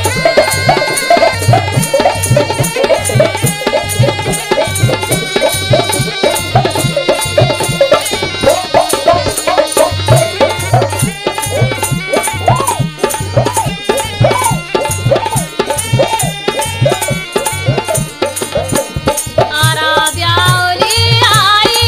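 Instrumental interlude of a Mewati folk song: a been (tumdi, the snake-charmer's pipe) playing a winding melody over a steady hand-drum beat.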